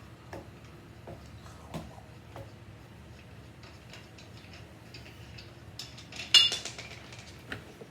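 Metal hand tools being handled: scattered light clicks and taps, with one loud metallic clank that rings briefly about six seconds in.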